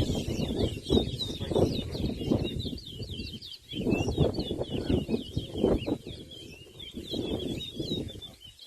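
Caged towa-towa seed finch singing a fast, continuous twittering song of quick high chirps. It plays over louder, irregular low background noise.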